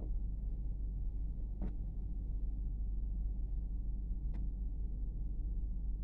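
Steady low mechanical hum, with two light clicks about three seconds apart as laundry is handled on a wooden drying rack.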